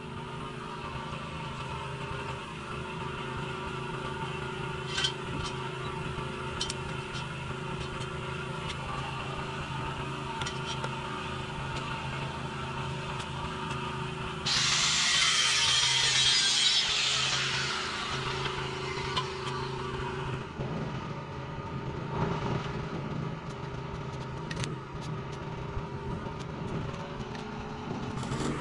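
Stick-welding arc from a small inverter welder, crackling for about six seconds about halfway through, over a steady machine hum.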